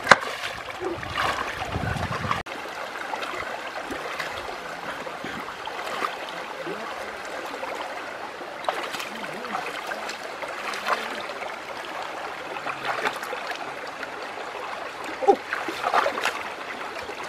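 Shallow stream running and gurgling over rocks, with hands and feet splashing in the water now and then, more often near the end.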